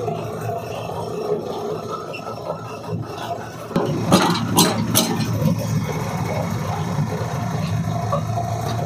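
Stone chakki mill with natural grinding stones running steadily, grinding turmeric into fine powder. About four seconds in the noise gets louder and fuller, with a few sharp scrapes.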